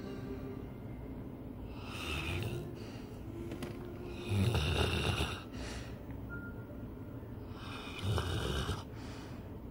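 Snoring in sleep: three snores, the first weaker, about two, four and a half and eight seconds in, with quieter breathing between.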